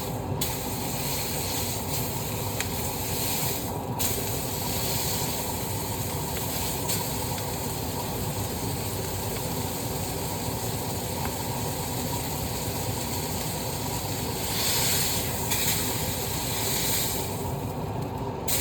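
Burger patty sizzling steadily in a hot pan, the sizzle swelling briefly twice near the end.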